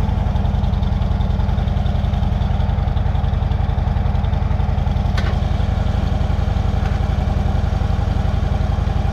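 Motorcycle engine idling steadily with an even, rapid pulsing, and one short click about five seconds in.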